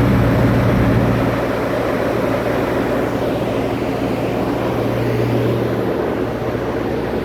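Cummins Onan V16 turbo diesel generator running during a load test: a loud, steady drone with a strong low hum and dense exhaust and turbo noise over it. Described as really, really loud when it's running.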